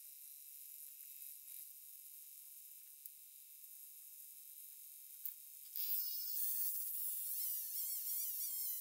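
A Stihl chainsaw's two-stroke engine starts up a little over halfway in and runs with a high buzzing note whose pitch jumps up and then wavers.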